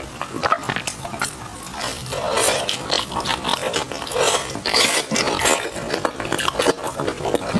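Close-miked chewing of sticky glutinous rice food: wet smacking and clicking mouth sounds with bites and squelches throughout.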